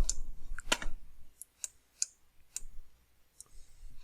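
Computer mouse clicking: about seven single sharp clicks at uneven intervals, as a 3D model is worked on at the computer.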